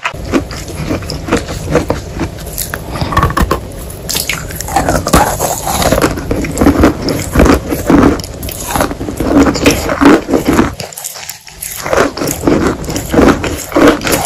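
Close-miked biting and chewing of a large block of wet chalk: a dense run of crunches with a brief lull about eleven seconds in.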